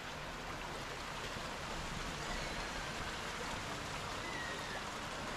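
Steady rushing of running water, an even noise without break, with two faint short high chirps about two and four seconds in.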